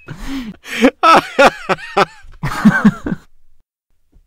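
Laughter in loud bursts, breaking off about three seconds in.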